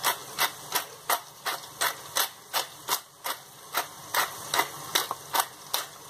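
Hand-twisted pepper mill grinding black peppercorns, clicking about three times a second as the top is turned back and forth.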